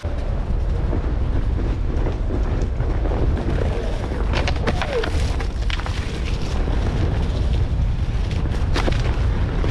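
Wind buffeting the microphone of a moving Onewheel ride on a dirt forest trail: a heavy, steady low rumble that begins suddenly, with scattered sharp clicks and snaps from sticks and debris under the board.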